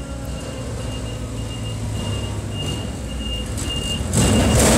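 Linde forklift running steadily while its warning beeper sounds in short high beeps, about two and a half a second. About four seconds in, a louder rushing noise joins and holds to the end.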